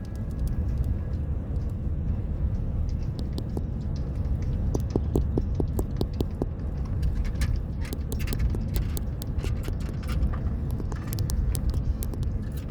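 Steady low road and engine rumble inside a moving car's cabin. A run of quick taps comes about five seconds in, then scattered sharp clicks later on.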